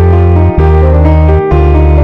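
Background music: loud sustained low notes and chords that change about once a second.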